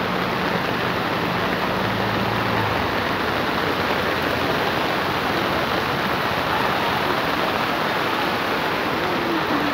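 Loud, steady rush of heavy rain and muddy floodwater running down a street. A faint low hum sits under it for the first two and a half seconds.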